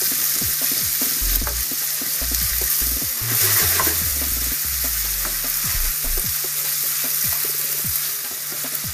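Meat browning in a frying pan with bacon and onions, sizzling steadily, with frequent short clicks and scrapes of a utensil stirring it.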